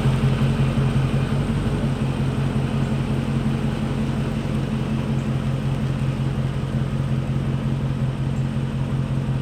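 A car running steadily: a low, even hum with no clicks.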